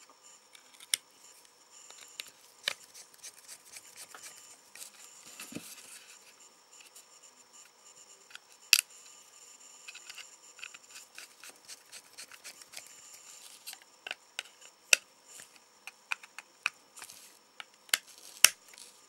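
Small plastic clicks and scrapes of a Nokia 1100 mobile phone's casing being put back together, with a small screwdriver turning the case screws. The clicks are scattered and sharp, a few of them louder, with light scraping between.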